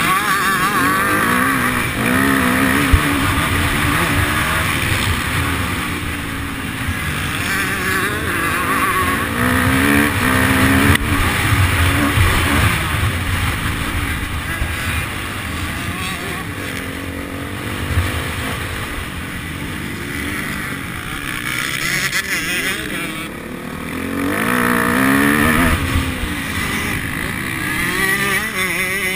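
Motocross bike engine heard from on the bike, revving up and falling back again and again as it is ridden around a dirt track, with wind buffeting the microphone.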